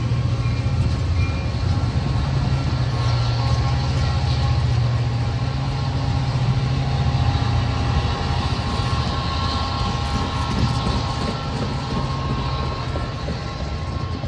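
Amtrak California bilevel passenger cars rolling past close by: a steady rumble of steel wheels on rail over a low drone. It eases slightly near the end as the last car, the cab car, passes and moves away.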